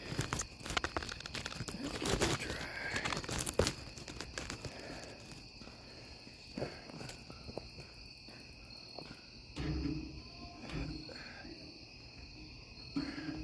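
Night insects, crickets, chirping steadily. Close rustling and clicks near the microphone crowd the first few seconds, and a couple of short low thuds come near ten seconds in and near the end.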